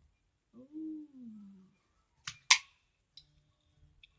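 A short wordless hum that falls in pitch, then two sharp plastic clicks about a quarter second apart, the second the loudest, and a few faint ticks: hands working the headset's plastic parts and plugs.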